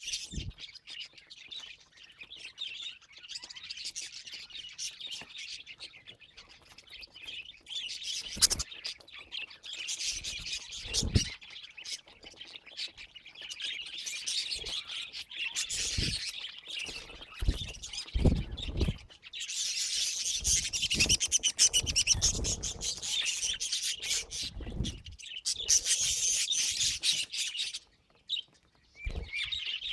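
Budgerigars chirping and chattering almost without pause, with a few low thumps among the calls. The chatter breaks off briefly near the end.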